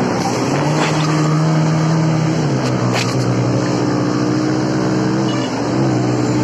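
Motorcycle engine running steadily while riding, over a steady rushing hiss. The engine note drops about two and a half seconds in and climbs briefly near the end, with two short knocks along the way.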